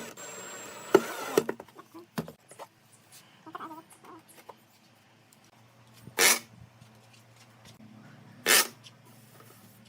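Workshop sounds: a noisy stretch with a few sharp knocks in the first two seconds, then two short, loud hissing bursts about two seconds apart.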